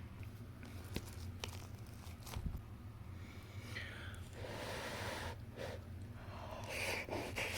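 Faint handling sounds: a few light clicks in the first half, then soft rustling in the second half, over a steady low hum.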